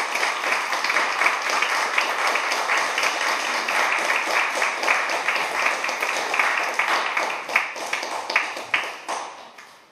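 Audience applauding, a dense run of clapping that thins out and fades away near the end.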